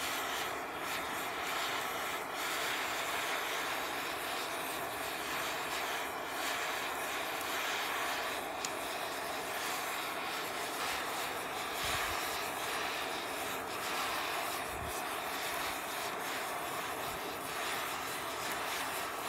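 Handheld gas torch burning with a steady rushing hiss while its flame heats a crack in a cast-iron stove plate.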